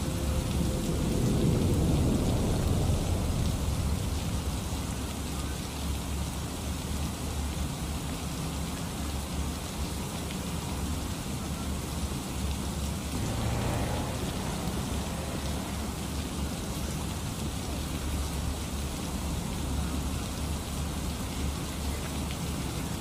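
Steady rain with a low rumble of thunder in the first few seconds, and a brief low hum about halfway through.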